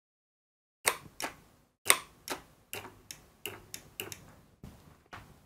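A string of about a dozen short, sharp clicks at uneven spacing, starting about a second in, from the electric desoldering gun as it is handled just after being plugged in.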